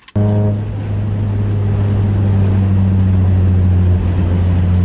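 Mazda Miata's four-cylinder engine running at steady revs, a constant low hum that starts abruptly right at the beginning.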